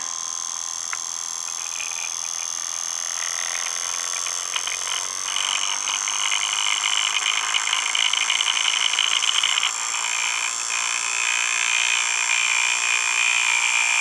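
Homemade reed-switch motor running with a rapid, steady buzz of reed-switch clicks. About five seconds in it grows louder and faster as an iron core is slid into its transformer coil, taking it from about 2500 to about 3500 RPM.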